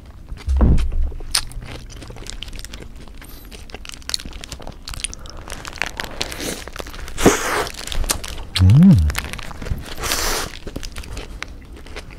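Close-miked chewing and biting into a black squid burger, with a crunchy bite about halfway through and crinkling from its paper wrapper. A low thump comes near the start.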